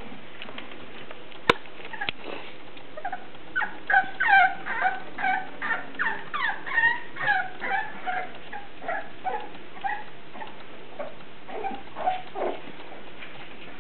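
English Bulldog puppies whining, a quick run of short high cries, several a second and many falling in pitch. A single sharp click comes about a second and a half in, before the cries start.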